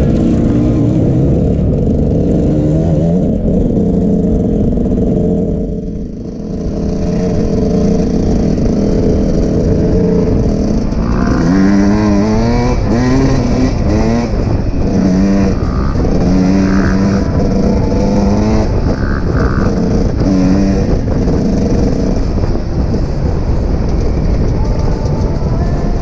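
Dirt bike engine revving under riding, its pitch repeatedly climbing and dropping as the throttle is opened and the gears change, with a brief easing off about six seconds in.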